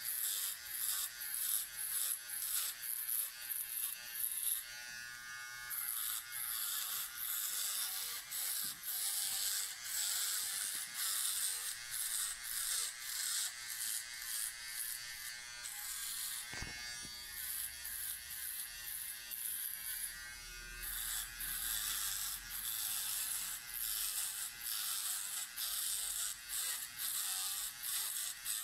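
Powertec TR-150 electric cylinder shaver running as it is passed over short hair on the side of a head in quick repeated strokes, about two or three a second, shaving it down to skin. The strokes break off briefly a few times.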